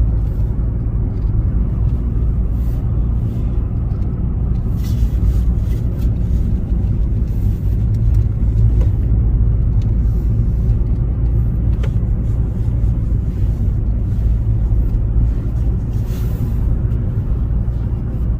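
Car interior road noise while driving: a steady low rumble of engine and tyres.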